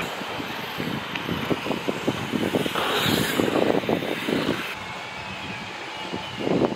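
Mountain bike tyres rolling over packed dirt jumps, with irregular clicks and knocks from the bike. The sound swells as the bike passes about three seconds in, and there is another cluster of knocks near the end.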